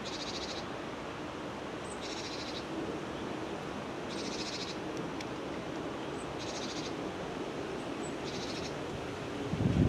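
A small wild bird repeating a short, high, buzzy trill about every two seconds, over a steady background hiss. A low thump comes near the end.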